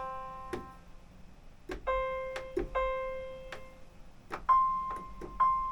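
Keyboard playing in a piano voice: a note struck twice, then the same note an octave higher struck twice, each ringing and fading, stepping up the keyboard in octaves.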